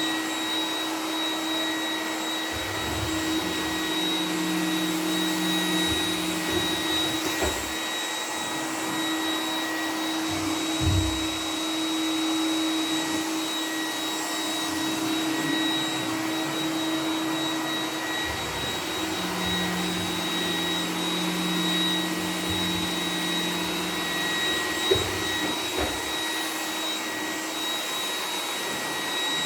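iRobot Roomba 980 robot vacuum running with its suction in boost mode: a steady motor whine with constant high tones. A lower hum comes in twice for a few seconds, with a few soft low bumps, and a single sharp tick sounds near the end.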